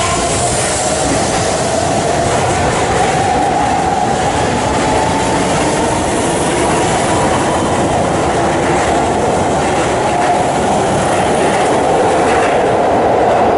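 Keihan electric train moving along the station platform: steady running noise with wheels clacking over rail joints, and a drawn-out whine that rises slowly in pitch.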